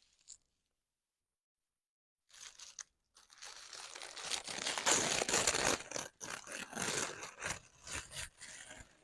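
About two seconds of dead silence, then close-up paper crinkling and tearing, a dense run of crackly rustles that is loudest around the middle.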